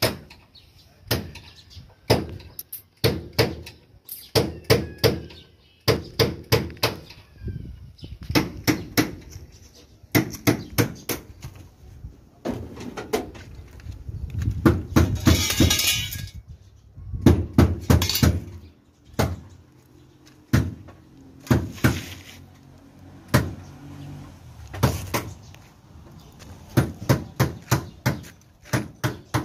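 Hammer blows on sheet metal, struck in quick runs of several sharp hits with short pauses between them, like panel-beating work. A little past the middle a noisy scraping sound lasts about two seconds.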